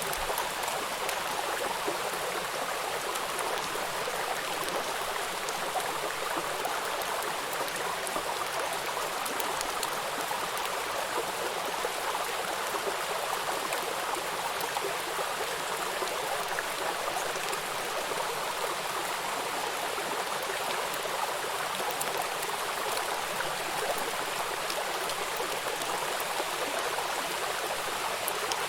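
Steady rain falling, an even hiss with many fine drop patters.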